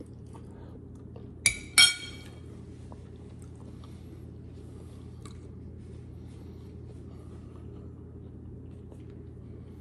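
A metal spoon clinks twice against a ceramic soup bowl as it is set down, about a second and a half and two seconds in, each clink ringing briefly. A steady low hum runs under it.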